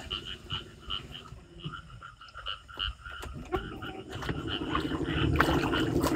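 Frogs calling at night: a faint run of short repeated croaks, about three a second. A low steady hum comes in about four seconds in.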